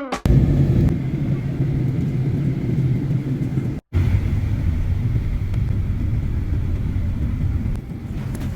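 Steady low rumble of a vehicle running, with a brief break about four seconds in.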